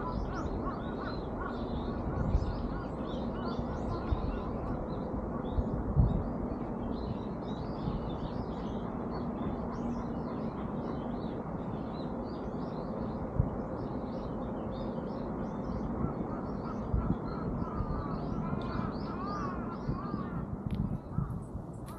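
Many birds chirping and twittering in a steady stream of short calls, over a constant rush of background noise, with a few dull thumps.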